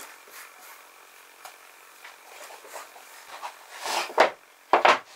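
Hand work on pine wood: scattered light taps and clicks, then two loud, short, rough strokes near the end.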